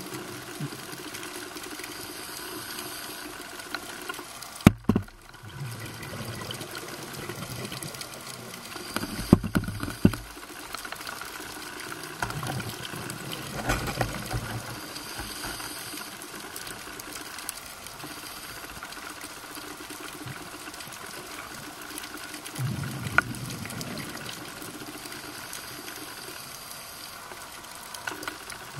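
Underwater sound picked up through a camera housing: a steady hiss of water, broken a few times by low bubbling rumbles a second or two long and by a few sharp clicks, the loudest about five seconds in.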